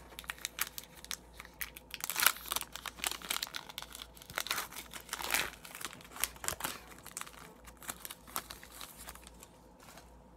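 Wrapper of an Upper Deck hockey card pack being torn open and crinkled by hand: a dense run of sharp crackles that dies down near the end.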